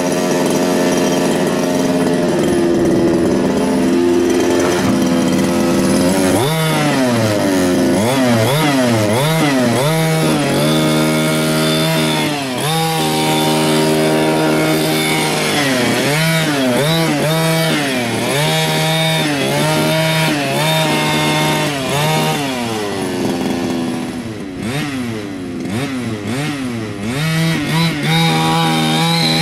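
Losi 5ive-T's 26cc two-stroke gas engine, running at a steady idle for the first few seconds, then revved up and down over and over as the truck is driven.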